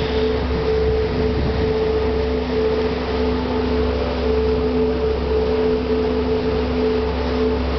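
Car ferry's engine running steadily: a low, even drone with a constant hum, as the ferry pulls away from its landing ramp with its propellers churning the water.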